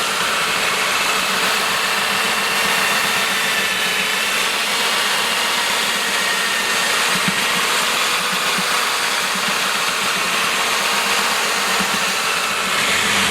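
Electric mixing machine running steadily, stirring a two-part adhesive of powder and liquid latex in a barrel: a steady motor whine over broad churning noise.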